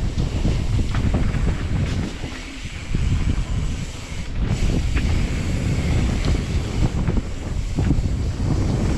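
Wind buffeting the microphone of a camera on a mountain bike running down a bike-park trail, with scattered knocks and rattles as the bike rides over rough ground. The wind dips briefly twice, about two and a half and four seconds in.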